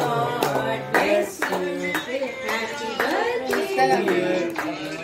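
A song with singing plays while several people clap along, about two claps a second.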